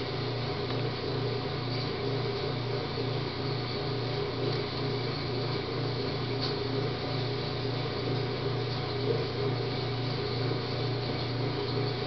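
Steady low mechanical hum with a light hiss, with no distinct events.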